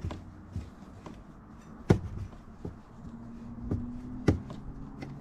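Hand tools working on a motorcycle brake caliper bolt: a handful of sharp clicks and knocks, the loudest about two seconds in and another just past four seconds.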